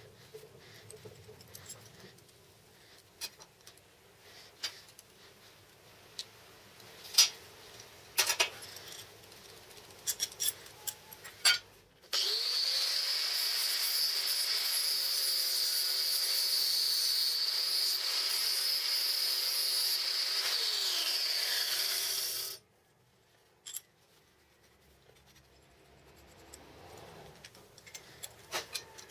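Light clicks and clinks of small metal parts being handled, then an angle grinder's motor running steadily with a high whine for about ten seconds. The whine dips briefly near the end before the sound cuts off abruptly.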